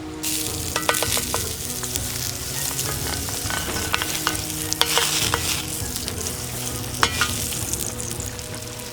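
Food frying and sizzling, stirred with a utensil that clicks and scrapes against the cookware a few times.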